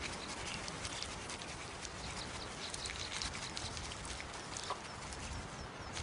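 Bearded vulture dust-bathing: a steady soft rustle and scuffle of feathers in loose soil, with many small scattered ticks and patters.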